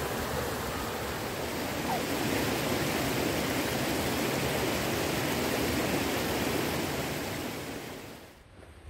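A steady rushing noise, even across low and high pitches, that fades away near the end.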